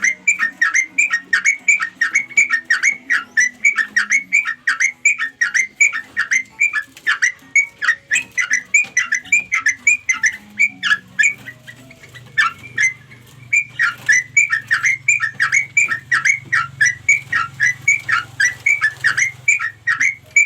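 Yellow-vented bulbul (trucukan) calling nonstop in quick bubbly chirps, about three a second, played as a lure call to draw other bulbuls in. A faint low hum runs underneath.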